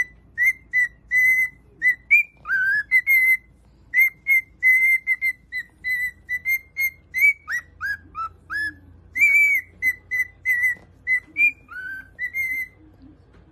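Cockatiel whistling a tune: a quick run of short, clear whistled notes, with a few swooping downward notes among them, stopping near the end.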